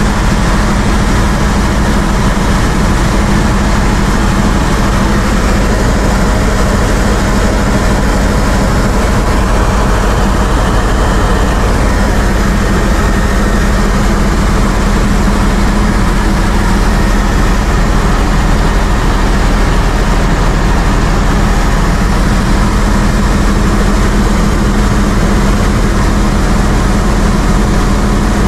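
Helicopter engine and rotor running steadily in flight, heard as loud, constant cabin noise with a steady low hum.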